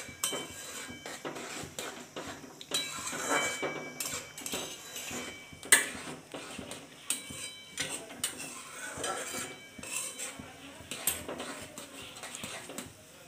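Steel spoon stirring motichur boondi in sugar syrup in a wide metal pan, scraping and clinking against the pan's sides and bottom, with brief ringing now and then and one sharp clink about halfway. The boondi is cooking in the syrup on low heat.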